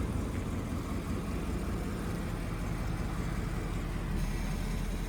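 A 2016 Ford Mustang's 5.0-litre V8 idling steadily with a low, even rumble.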